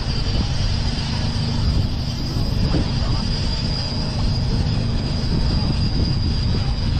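Boat motor running steadily under way, with a rumble of engine, wind and water and a thin steady high whine.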